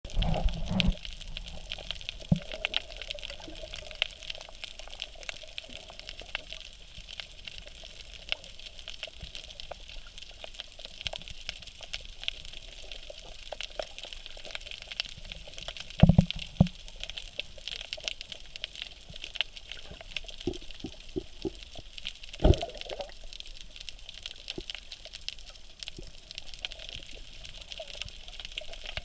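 Underwater reef ambience picked up by a submerged camera: a steady hiss laced with many small crackling clicks, broken by a few dull thumps near the start, a little past halfway and about three quarters through.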